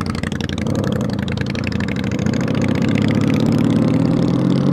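Honda Magna's V4 engine pulling away from a stop, its note rising steadily as the motorcycle gathers speed.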